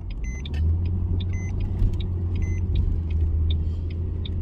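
Car running, heard from inside the cabin: a steady low engine and road rumble that grows a little louder about half a second in. Over it, a faint short electronic beep repeats about once a second, with light ticking in between.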